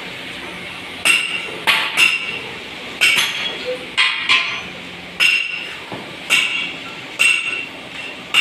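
Hammer striking metal in a loom workshop: about ten sharp, ringing clinks, irregularly spaced at roughly one a second.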